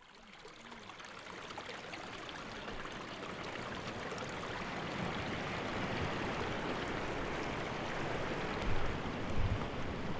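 Freshwater stream running, a steady rush of water that fades in over the first few seconds, with a couple of low thumps near the end.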